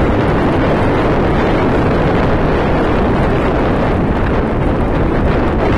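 Steady loud rush of wind on the microphone from riding a moped alongside a moving freight train, with the train's wagons rolling on the rails mixed into the noise.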